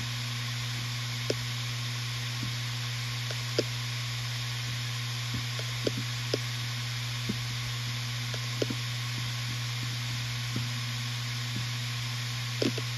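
Western Digital RE 4 TB 7200 rpm five-platter hard drive spinning with a steady hum and hiss, its heads making scattered seek clicks about once a second. Near the end the clicks turn into a rapid flurry as the drive seeks hard.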